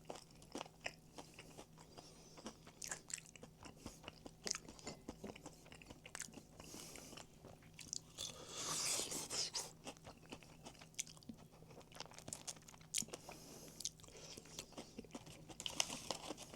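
Close-up chewing of crispy fried chicken: repeated crunching bites and small mouth clicks, with a louder crunching stretch about eight seconds in.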